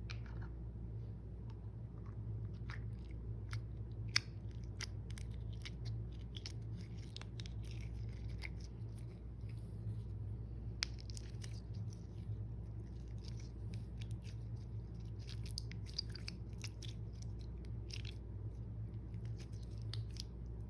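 Slime being kneaded and squished by hand, making irregular sticky crackles and small popping clicks over a steady low hum.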